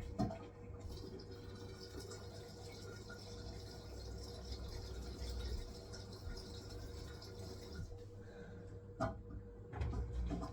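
Hisense washing machine running its wool cycle, with a steady hum and water running into or through the drum. Two short knocks sound, one just after the start and one about nine seconds in.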